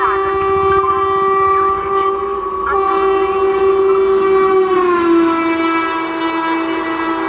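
WAP-4 electric locomotive's horn held in one long blast as the train approaches at speed. Its pitch drops about five seconds in as the locomotive passes, and the rush of the passenger coaches going by follows.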